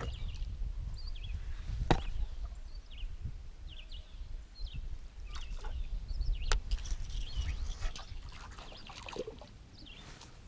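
Outdoor ambience from a small boat on a calm river: a steady low rumble, short faint bird chirps, and two sharp knocks, one about two seconds in and one about six and a half seconds in.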